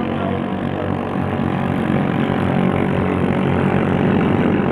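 Several 6.5 hp ketinting longtail boat engines running flat out in a race. The drone of the overlapping engines grows steadily louder.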